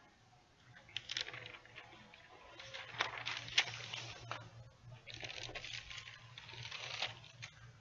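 Heat-transfer paper being handled and peeled back from a printed T-shirt: irregular rustling and crinkling of paper, in bursts, over a faint steady low hum.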